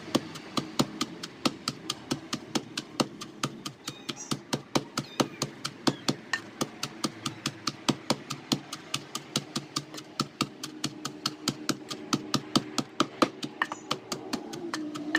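Wooden pestle pounding wet cassava leaves and spices in a wooden mortar, in quick, even knocks about three a second. The leaves are being coarsely crushed and are not yet evenly broken down.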